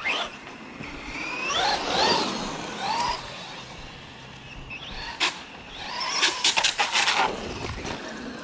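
Electric RC car's motor whining up and down in pitch in short throttle bursts. About five seconds in comes a sharp knock, then a quick run of clattering knocks.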